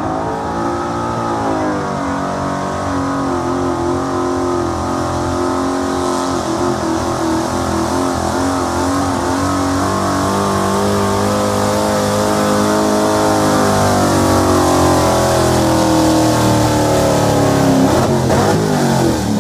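A pulling truck's engine held at high revs as it drags a weight-transfer sled down a dirt track, its pitch wavering up and down and getting louder as it comes closer. Near the end the revs fall away as the pull ends.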